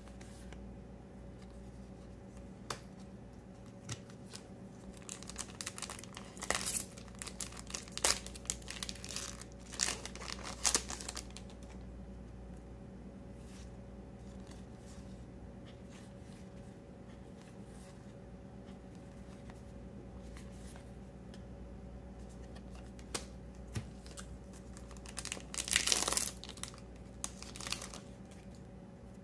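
Trading cards being handled: cards sliding against each other and set down on a playmat, with bursts of crinkling and rustling about five to eleven seconds in and again around twenty-six seconds, over a low steady hum.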